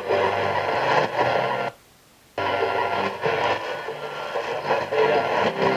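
Music from a shortwave broadcast station playing through a Retekess TR638 radio's speaker. About two seconds in, the audio cuts out for under a second as the radio is stepped from 9.690 to 9.685 MHz, then comes back.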